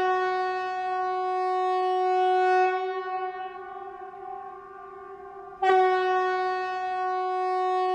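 Emergency alert alarm tone: one steady, buzzy pitch held for several seconds. It fades partway, then sounds again at full strength about five and a half seconds in.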